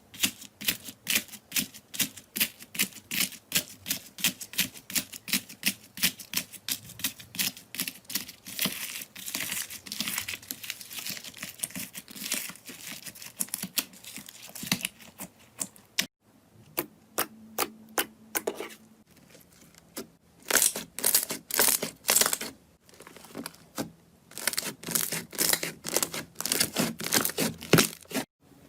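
Slime being handled, making rapid sharp wet clicks and pops, about two to three a second. A break about 16 seconds in is followed by irregular clusters of clicks and squelches.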